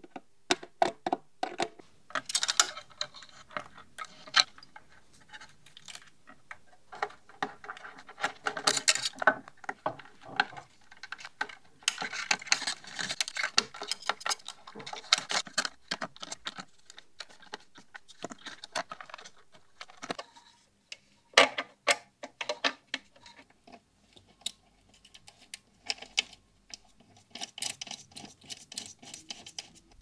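Small metal hardware being worked on a sheet-metal amplifier chassis: irregular clicks, taps, scrapes and rattles of screws, nuts and pliers as transformers are bolted on. The handling is busiest in the first half and thins to sparse clicks after about twenty seconds.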